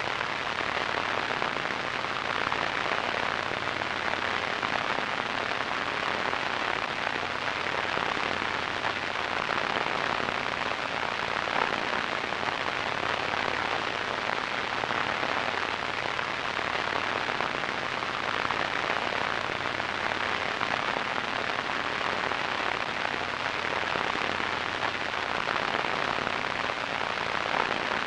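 Radio static: a steady, even hiss that stays the same, with little in the highest treble.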